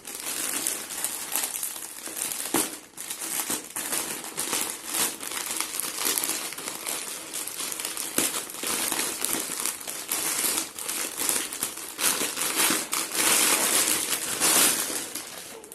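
Packaging crinkling and rustling by hand as a parcel is opened and unwrapped, a continuous irregular crackle that gets louder near the end.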